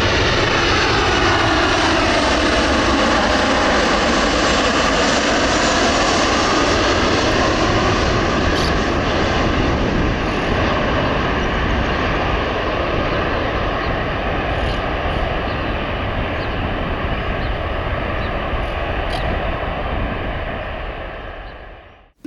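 Airplane engines passing low overhead, loud, with a buzzing set of tones that falls in pitch over the first few seconds as the plane goes by, then a steady rumble that slowly fades away.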